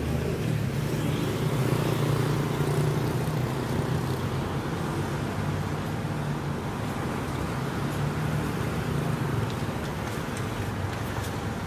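Street traffic, with a vehicle engine running close by as a steady low hum over the road noise; the hum is strongest a couple of seconds in.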